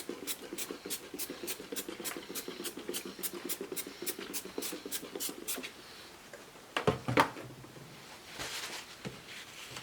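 Cloth wiping glass cleaner across a laptop LCD screen in quick back-and-forth strokes, about four a second, then a couple of sharp knocks about seven seconds in and a few slower, softer wipes near the end.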